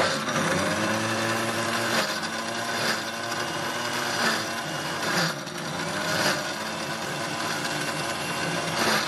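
Electric mixer grinder's motor running with a juicer jar, pulping pomegranate arils against a mesh filter basket: a steady whirring churn, its pitch shifting slightly now and then.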